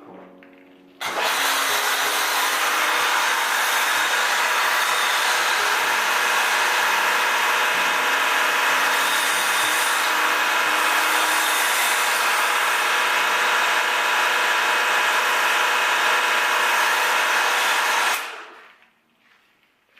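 AR Blue AR630TSS electric pressure washer running with a foam cannon spraying: a loud, steady hiss that starts suddenly about a second in and cuts off near the end.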